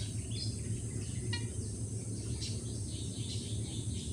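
A few short, high bird chirps and a quick clipped call over a steady low hum and a faint high hiss.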